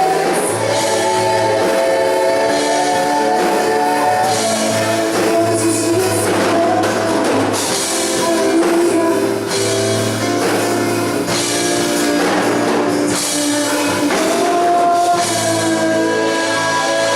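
Live worship band playing with sung vocals over drum kit, guitar and held notes.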